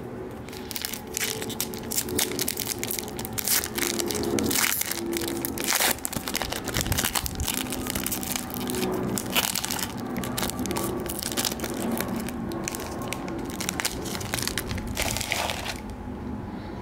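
Foil wrapper of a Panini Chronicles basketball card pack being torn open and crinkled by hand, a dense run of crackles and sharp snaps that lasts nearly the whole stretch and dies down just before the end.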